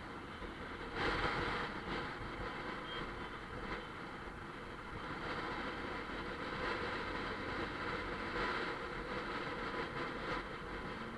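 Bajaj Pulsar 150's single-cylinder engine running at cruising speed under steady wind and road noise, as heard from a camera on the moving motorcycle. There is a louder swell about a second in.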